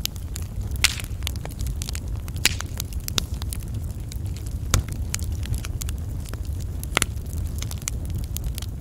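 Wood fire burning: a steady run of sharp crackles, with four louder pops spaced a couple of seconds apart, over a low steady rumble of the flames.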